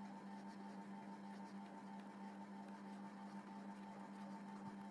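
Near silence: faint room tone with a steady low electrical hum.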